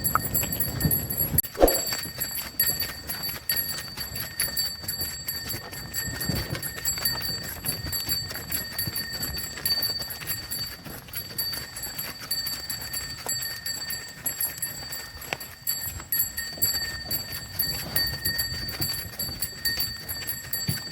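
A bullock's hooves clip-clopping at a run as it pulls a cart, in a quick irregular train of knocks, over a steady high-pitched ringing.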